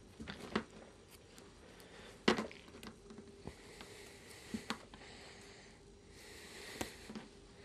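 Scattered taps, scratches and rustles against a gaming chair's padded back as a hand and a cat's paws play through the gap in it, the sharpest knock about two seconds in and a short rustle near the end.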